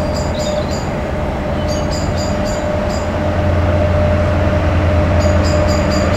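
Diesel locomotive hauling a passenger train as it approaches slowly, its engine rumble growing louder about a second and a half in, over a steady whine. Short runs of high chirps come and go.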